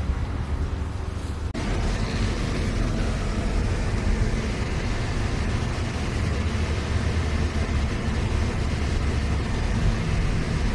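Steady road and engine noise inside the cabin of a moving car. A short stretch of outdoor background sound cuts off suddenly about a second and a half in.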